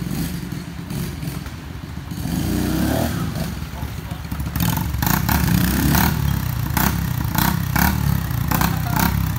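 Small dirt bike engines running and revving, louder about halfway through as a second bike rides close. Short sharp crackles come through in the louder part.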